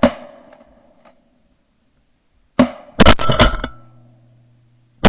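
Several shotguns firing at a flock of ducks. One blast rings out at the start, a single shot comes about two and a half seconds in, several more follow in quick succession, and another volley begins at the very end.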